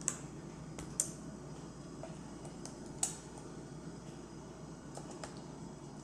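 Light clicks and taps of a plastic pry tool and fingers working at the stuck keyboard of an Apple iBook G4 laptop, a few sharp clicks a second or two apart over a steady low background hum.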